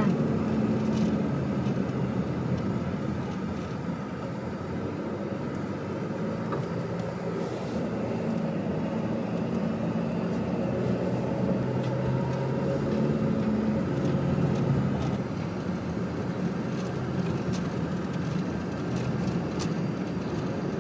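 Car engine and tyre noise heard from inside the cabin while driving on a rough concrete road. The engine hum is steady, its pitch rising and falling now and then.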